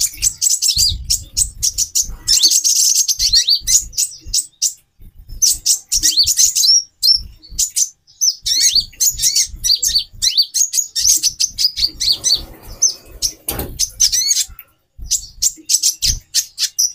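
Several female konin (kolibri ninja, the purple-throated sunbird) chirping rapidly and excitedly in overlapping high twittering bouts with brief pauses, calls used to stir male birds into breeding condition. A short rustle comes about three-quarters of the way through.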